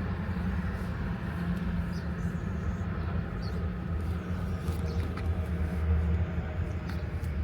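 Steady low hum of a motor vehicle driving, with road noise, and a few faint short high chirps.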